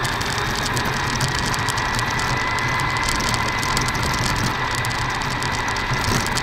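Losi Lasernut U4 RC car's electric motor and geared drivetrain whining steadily under way, heard from onboard, with a dense rattle of rapid clicks from the gears and tyres on snow.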